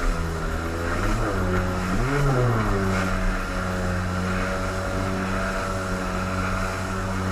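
An engine running steadily at one speed, briefly revving up and back down about two seconds in.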